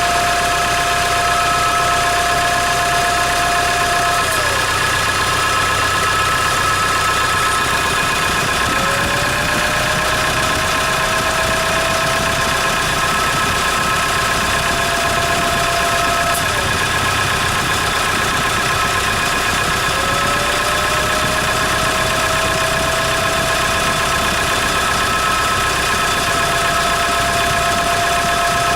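Hyundai Grand Starex engine idling cold with a steady high whistle and whine over it, which the owner puts down to the turbocharger. The lowest whistle tone drops suddenly twice and each time glides slowly back up to its pitch.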